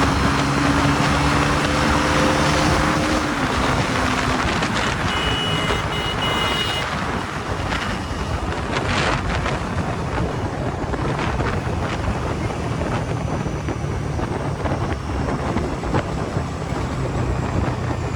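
Bajaj Pulsar NS400Z's 373 cc single-cylinder engine running steadily at highway speed, with heavy wind rush on the microphone. The engine's steady note is clear for the first few seconds, then the wind noise covers most of it.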